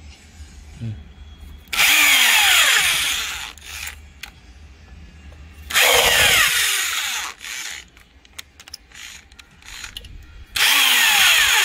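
Electric drill fitted with a screwdriver bit driving screws through a steel bracket into wall plugs: three short runs, each falling in pitch.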